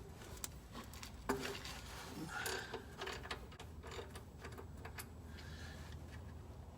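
Ratchet or wrench on the oil pan drain plug: scattered light clicks and knocks as the plug is loosened.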